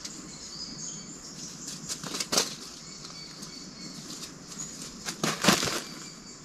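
Two brief flurries of bird wing flaps close by, about two seconds and five and a half seconds in, over faint birdsong.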